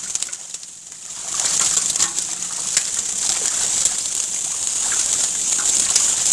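Many small fish flopping and splashing in shallow water inside a drawn fishing net, a patter of small splashes and ticks over a steady high hiss.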